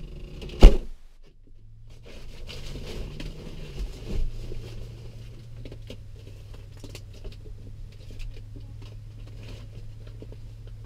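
A vehicle door or hatch on an SUV slams shut once, sharply and loudly, less than a second in. A steady low hum then sets in, with a smaller thump and scattered light knocks and rustles.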